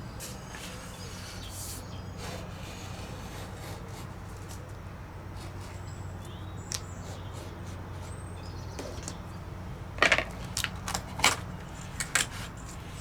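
Hand work on a workbench: a 3D-printed balsa stripper and thin plywood strips being handled, with faint scrapes, then several sharp clicks and taps about ten seconds in. A low steady hum runs underneath.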